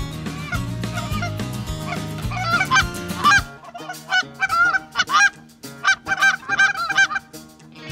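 Canada geese honking in a rapid string of calls, over background music that cuts out about three and a half seconds in, leaving the honks on their own.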